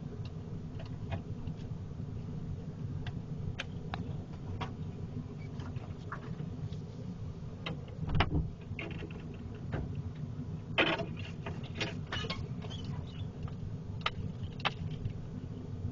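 Pickup truck creeping along a rough brush-lined dirt track: a steady low rumble of engine and tyres, with branches scraping and snapping along the body in scattered sharp clicks, the sound of the paint getting scratched. A loud thump comes about eight seconds in, and a burst of louder scraping follows around eleven to twelve seconds.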